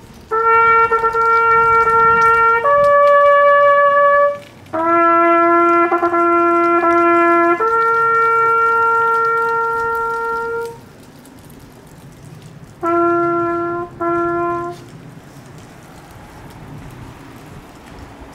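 Solo trumpet playing a slow ceremonial call in long held notes on a few bugle pitches, with repeated lower notes in the middle, a long high note, and two short low notes that end the call about 15 seconds in.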